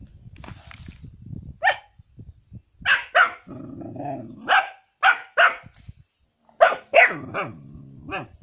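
A puppy giving about ten short, high barks, several in quick pairs, with a low rumbling growl between them a little past the middle.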